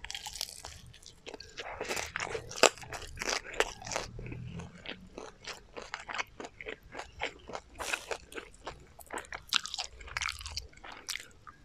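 Close-miked chewing of crispy garlic fried chicken, with a dense run of sharp crunches from the fried batter coating. The loudest crunch comes a little under three seconds in.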